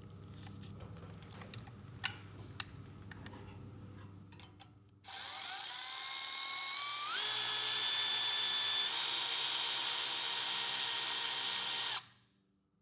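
A power drill starts about five seconds in, its motor whine climbing in pitch and then running steady at speed for several seconds before stopping abruptly. Before it there are faint clicks of parts being handled.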